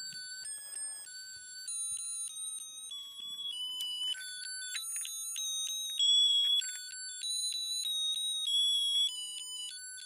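Toy school bus's built-in sound chip playing a high-pitched electronic melody of short stepped beeping notes, a few notes a second.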